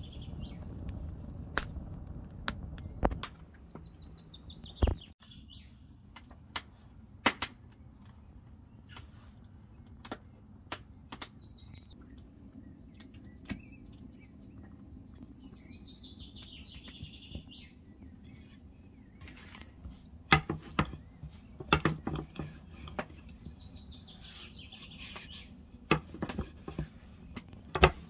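At first a wood fire in a stove burns with a low rumble and crackles. Birds chirp faintly throughout. In the second half a long, thin wooden rolling pin knocks and clatters repeatedly against the table as thin dough sheets are rolled out.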